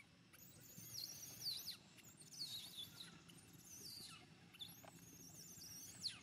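Baby monkey crying: repeated high-pitched squeals that drop steeply in pitch, about one a second, some coming in quick pairs.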